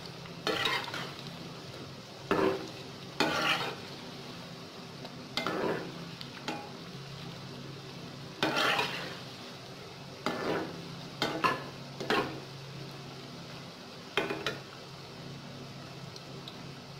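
Aloo-pyaz pakoras deep-frying in hot oil with a steady sizzle, while a slotted metal spatula stirs them and scrapes against the steel pan about nine times at irregular intervals.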